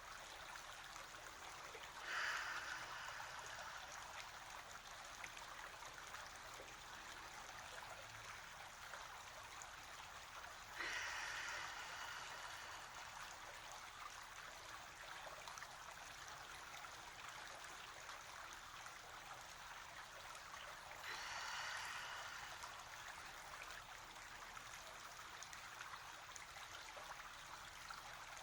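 A stream flowing steadily, with three long, deep human breaths about ten seconds apart, each starting sharply and tailing off over a second or two.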